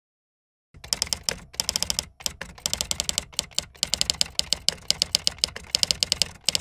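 Typing sound effect: rapid typewriter-style key clicks in an uneven stream, starting after about three-quarters of a second of silence.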